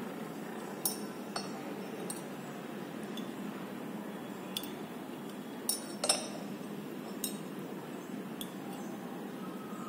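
Glass dropper clinking against the rim of a glass test tube as dilute hydrochloric acid is dripped in: a series of light, irregular clinks over a steady low room hiss.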